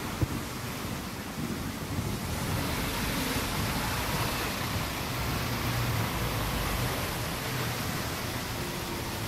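Steady city street traffic noise of cars and streetcars, with a sharp click just after the start.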